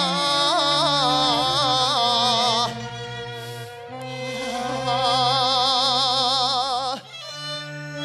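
Cantonese opera (yuequ) singing: a long drawn-out vowel held with wide vibrato over a Chinese instrumental accompaniment, breaking off a little under three seconds in; a second long vibrato-laden note follows and stops about a second before the end.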